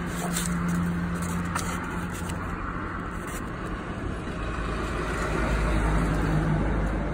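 A motor vehicle engine running steadily, its low rumble swelling slightly about five to six seconds in.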